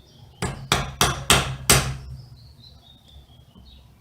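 Five quick hammer taps, metal on metal, driving a new ball bearing onto an angle grinder's armature shaft, each strike ringing briefly, all within about a second and a half.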